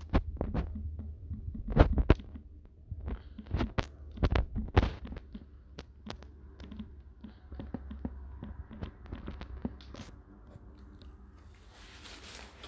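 Close handling noise at the camera: a string of sharp knocks and clicks over a low rumble for the first five seconds, then softer rubbing, and a short rustle near the end.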